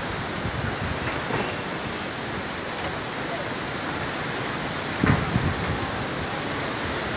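Steady rushing noise of a storm, wind and heavy rain, with a brief low rumble about five seconds in.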